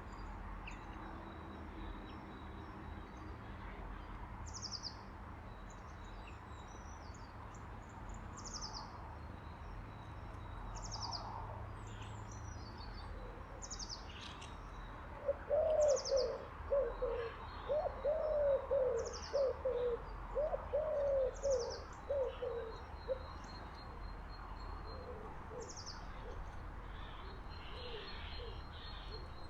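Small birds repeating high, thin falling notes every second or two. From about halfway through, a pigeon coos in a run of short low notes, the loudest sound, under a faint low background rumble.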